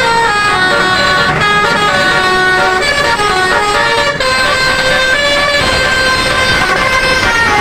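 Basuri telolet horn, a multi-trumpet bus air horn, playing a tune of held notes that step up and down, several sounding at once, without a break.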